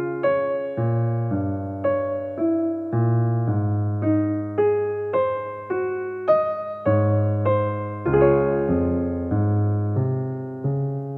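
Background piano music: a slow melody over chords, notes struck evenly just under twice a second and left to ring and fade, the last chord near the end held.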